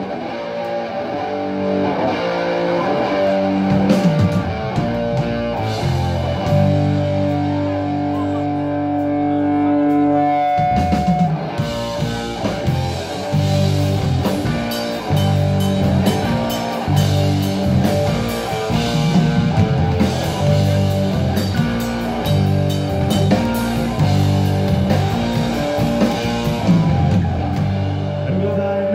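Live rock band playing an instrumental passage on electric guitar, bass guitar and drum kit. Long held guitar notes give way about eleven seconds in to the whole band playing a steady beat.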